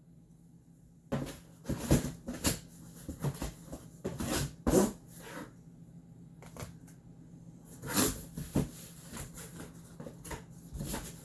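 A cardboard box being opened and its contents handled: irregular rustling, scraping and knocking of cardboard and packaging.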